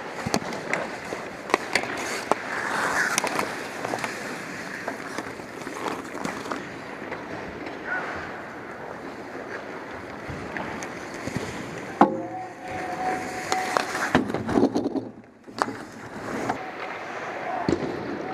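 Ice hockey play: skate blades scraping and carving the ice, with sticks and puck clacking throughout and a sharp knock about twelve seconds in.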